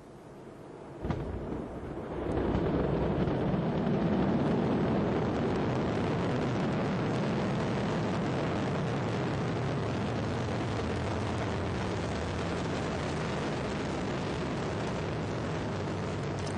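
Ariane 5 at liftoff, its two solid rocket boosters and Vulcain core engine burning. A sharp crack comes about a second in, then a deep, steady rumble builds over about a second and holds.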